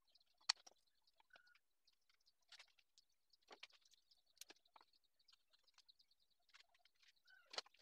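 Faint, scattered clicks and light taps of wooden strips being handled, glued and set down on a board, with a sharp tap about half a second in and another near the end.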